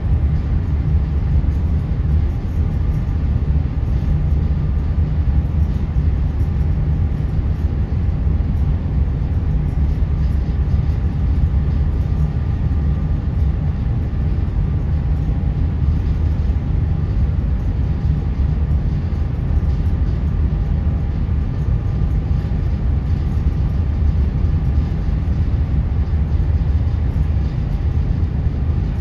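Ferry's engines and machinery running, heard on board: a steady low rumble with a faint, steady whine above it.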